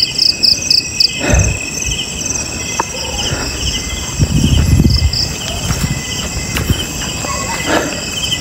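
Crickets and other night insects chirping in steady pulsed trills, with low thumps and rustling from footsteps on a path, loudest about four to five seconds in.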